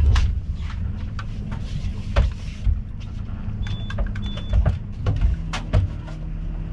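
Boat engine running steadily at low revs, a low hum, with several short sharp knocks scattered through it.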